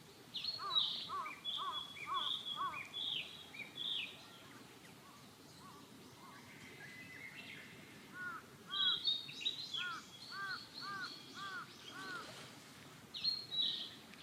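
Birds calling in two bouts, high chirping notes mixed with a run of repeated arching lower notes, about three a second, over steady outdoor background noise.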